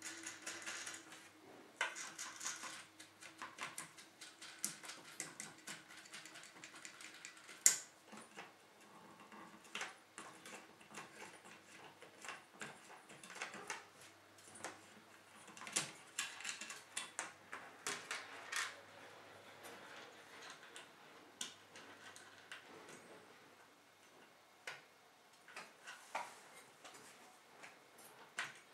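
Small metal nuts and bolts clicking and tapping as they are handled and threaded by hand onto the long mounting bolts of a CPU water-block kit, in faint, irregular clicks with one sharper click about eight seconds in.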